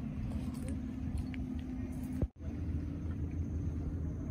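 Steady low mechanical hum, like a motor running, which cuts out for a moment a little over two seconds in and then carries on.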